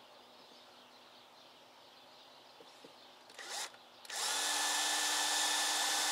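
Cordless drill with a short blip of the trigger, then from about four seconds in running steadily with an even whine, its bit drilling into the cast-iron exhaust manifold of a 5.9 Cummins diesel.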